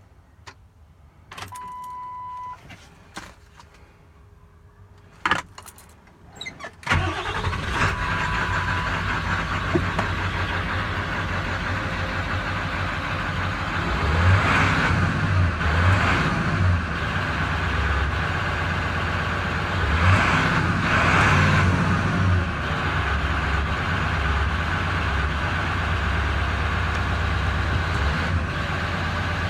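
Ford 7.3 Powerstroke V8 turbo diesel started about seven seconds in, after a short steady beep and a few clicks, then idling roughly, its low rumble swelling unevenly several times. The owner calls it a rough idle.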